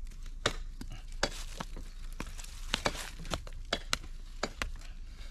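Irregular dry clicks and crackles, about a dozen, as cassava stem cuttings are handled and pushed into dry, crumbly soil.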